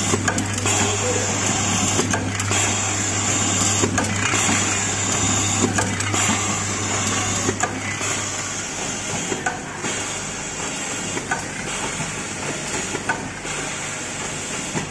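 Automatic servo-motor screwdriver machine running, its motors whirring as it drives screws into a heat sink, with short sharp clicks every second or two. A steady low hum cuts off a little past halfway through.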